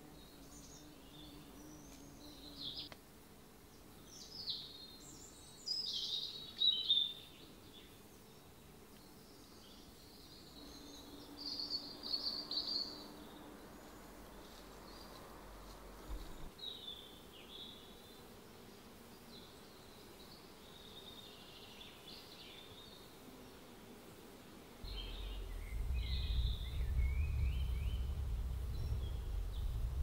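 Wild birds chirping and calling now and then, in short high phrases over a quiet woodland background. About 25 seconds in, a steady low rumble joins them and becomes the loudest sound.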